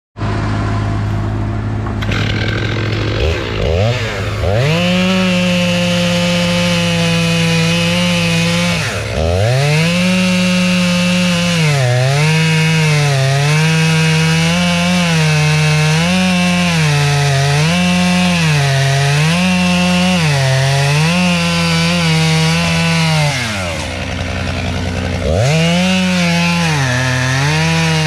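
Two-stroke chainsaw revved to full throttle and cutting wood, its pitch sagging and recovering about every second and a half as the cut loads it. It falls back twice and revs up again. A steady lower drone runs underneath.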